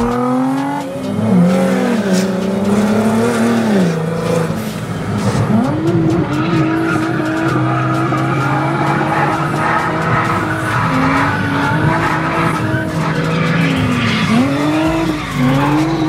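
Drift car's engine held at high revs, the pitch dipping and climbing back several times, with tyres squealing as the car slides.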